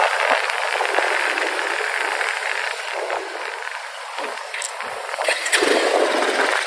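Wind and road noise from a moving motorcycle, a steady rush that eases about four seconds in and grows louder again near the end.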